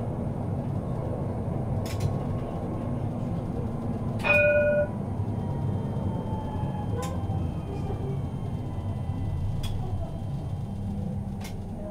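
Tram running along its rails, heard on board as a steady low rumble with a few sharp clicks. About four seconds in comes a short ringing ding of several pitches, the loudest sound. A faint whine slowly falls in pitch in the middle.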